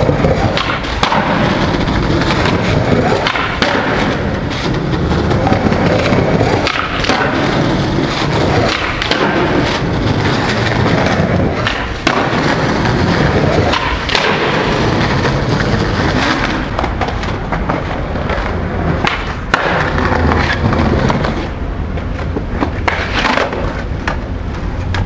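Skateboard wheels rolling on rough concrete paving, with repeated sharp clacks of the board's tail popping and landing.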